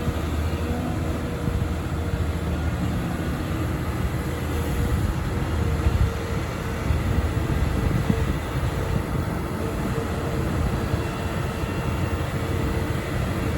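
Volvo EC300E excavator working, its diesel engine and hydraulics running steadily under load, with a faint whine that comes and goes.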